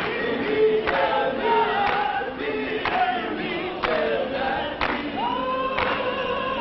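A choir singing, with a sharp beat about once a second.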